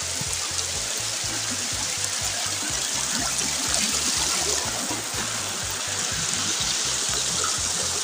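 Spring water running and trickling in a steady rushing hiss, with background music and a low bass line underneath.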